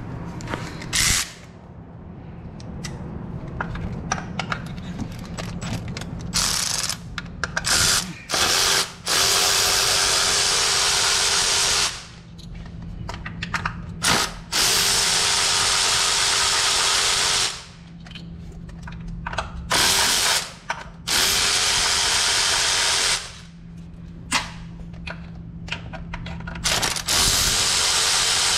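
Cordless electric ratchet running in repeated bursts of about one to five seconds each, spinning bolts out of the engine's top end, with clicks and rattles of handling between runs.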